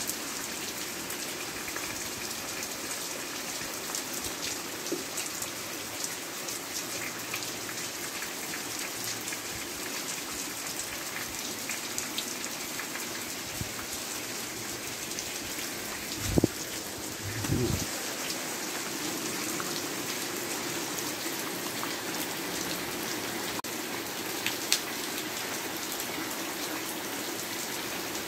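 Steady rain falling on clay-tile and corrugated-metal roofs, with water running off the eaves and a patter of drops. Two brief dull thumps about halfway through.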